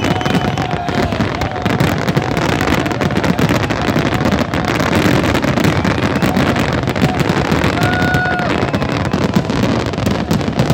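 A dense fireworks barrage: continuous crackling and popping of many shells at once over a low rumble of booms. A short steady whistle-like tone sounds about eight seconds in.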